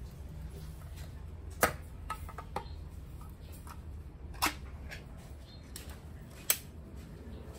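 Ring-pull tin can being opened by hand on a hard countertop: three sharp metallic clicks a couple of seconds apart as the tab is lifted and the lid peeled back, with a few fainter ticks and taps between.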